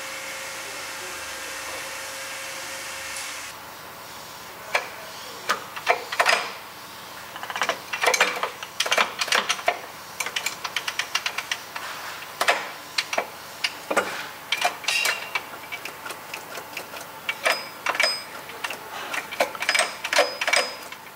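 Irregular metallic clicks and clanks from the gears of a STANKO 1M63 lathe's open headstock gearbox being worked by hand, in quick clusters. A steady hum runs under the first few seconds and stops about three and a half seconds in.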